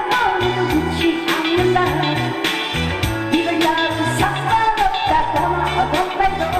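Upbeat song with a steady beat and bouncing bass line, a voice singing the melody over it.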